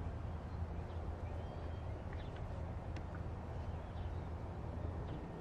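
Outdoor background: a steady low rumble, with a few faint bird chirps and a light tap about three seconds in.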